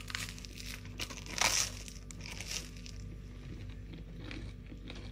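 Crisp grill-toasted bread crackling and crunching as a piece is torn off, loudest about a second and a half in, with a few fainter crackles near the end.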